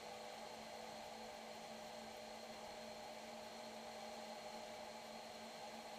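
Towboat's engine running at a steady cruising speed, heard faintly as an even hum under a steady hiss of wake and wind.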